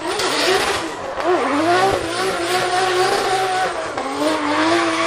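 Nissan Silvia S15 drift car's engine revving hard, its pitch swinging up and down again and again through the slide. Under it is the steady hiss and squeal of the rear tyres spinning sideways and smoking.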